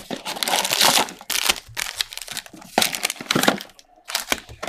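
Plastic wrapping and cardboard of a sealed box of football trading-card packs being torn open, with the packs pulled out and handled, in a run of short crackling rustles.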